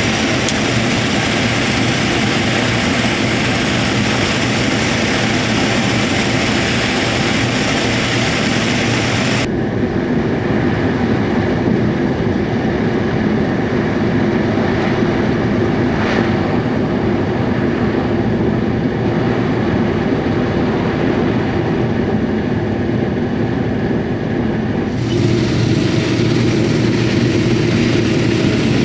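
Combine harvester running steadily while shelling corn: a loud, continuous machine drone with an engine hum underneath. The high hiss drops away suddenly about ten seconds in and comes back near the end.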